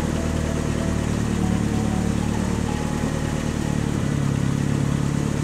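Engine sound effect of an animated toy ambulance, a steady low running hum that shifts slightly in pitch about four seconds in.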